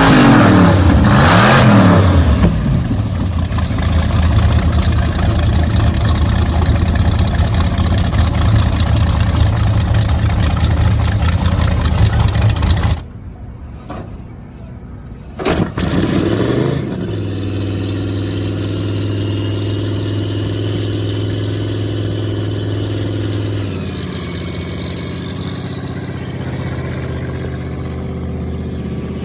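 A hot rod engine revs hard and then holds a steady, fast run; it cuts off suddenly about halfway through. After a short lull an engine catches with a quick rev and settles into a steady idle that drops slightly in pitch near the end.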